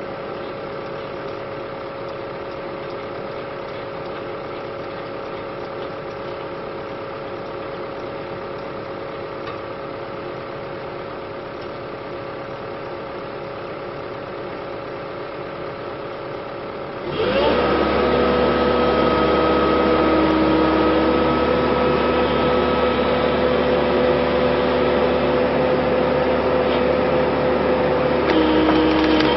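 Excavator diesel engine running steadily. About two-thirds of the way through, the sound switches abruptly to a louder, steady machine running.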